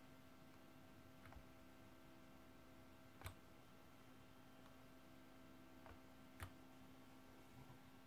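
Near silence: a steady faint hum with a few soft clicks from a hand pressing and shifting on a laptop, the clearest about three seconds and six and a half seconds in.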